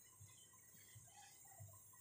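Near silence: faint room tone with a few soft low thumps.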